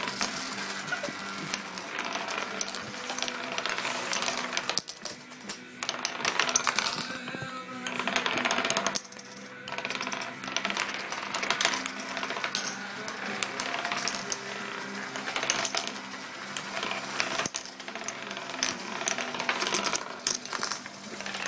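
Wooden nickels, thin wooden discs, being flicked into spins on a wooden tabletop: a busy, continuous clatter of small clicks and rattles as they spin, wobble down and topple. Music plays underneath.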